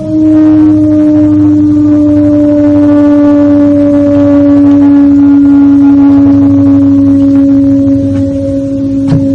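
A loud, deep, sustained horn-like tone, held on one note that sinks slowly in pitch, with a low hum beneath it. It breaks off briefly right at the start, then sounds again, and a few short clicks come near the end.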